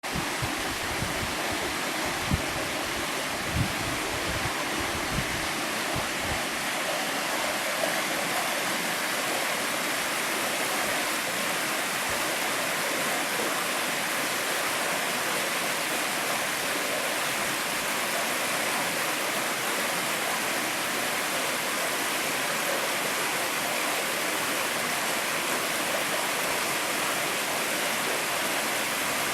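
Mountain trout stream rushing over rocks, a steady full water noise, with a few low thumps in the first several seconds.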